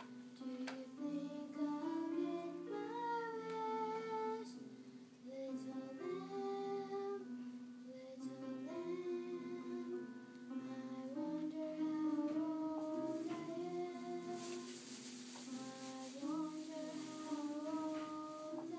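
A girl singing a solo melody over a sustained instrumental accompaniment.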